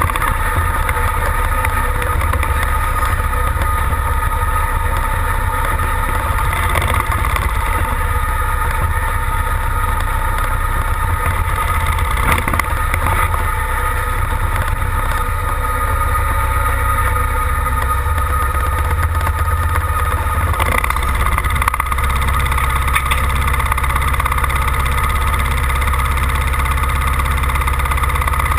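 Tractor engine idling low as a Ford pulling tractor reverses slowly up to the pulling sled to be hooked on; a little past two-thirds of the way through its rumble becomes deeper and fuller as it comes close.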